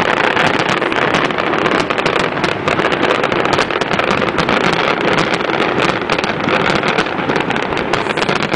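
Fireworks display going off, with a dense, continuous crackle of many small bursts over a steady rumbling roar.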